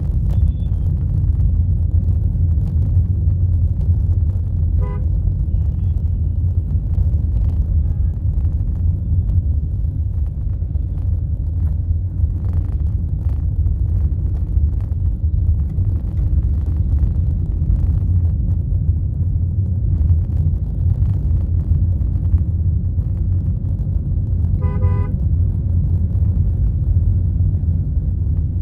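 Steady low rumble of a vehicle moving through road traffic, with short car-horn toots about five seconds in and again, louder, near the end.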